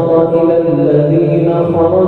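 A young man's voice reciting the Quran in a melodic chant, drawing out long held notes that step from one pitch to the next.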